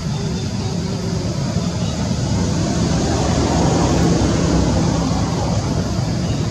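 Steady low rumbling background noise, growing a little louder in the middle.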